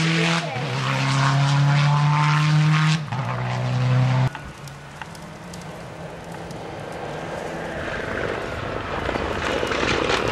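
Rally car engine at high revs passing close, its note dropping in pitch twice, then cut off abruptly about four seconds in. After that a Mitsubishi Lancer Evolution X rally car is heard approaching from a distance, its engine growing gradually louder.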